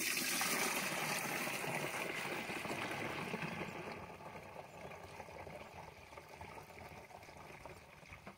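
Liquid pesticide mixture being poured into a backpack sprayer's tank: a steady splashing pour that gradually gets quieter.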